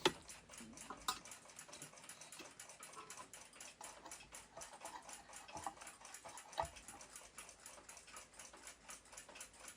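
Mechanical clock ticking steadily and quickly, about five ticks a second, with a few louder clicks of metal parts being handled near the start, about a second in and again later.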